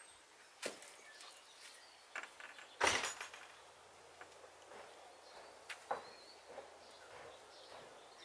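A dog moving about on wooden decking and into a wooden shed, making a few scattered light knocks and taps, the loudest a short clatter about three seconds in.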